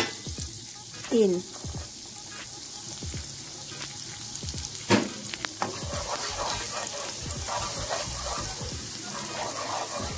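Minced garlic sizzling in melted butter in a skillet, stirred with a wooden spatula that clicks and scrapes against the pan, with one louder knock about five seconds in.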